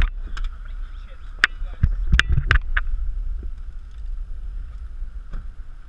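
Knocks, clicks and thumps from people shifting about inside a car with a door open and from the camera being handled, heaviest around two seconds in. Under them runs a steady low rumble like wind on the microphone.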